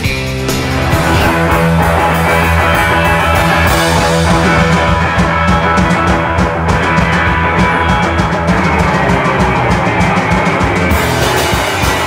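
A rock band playing loudly, with electric guitar and drum kit.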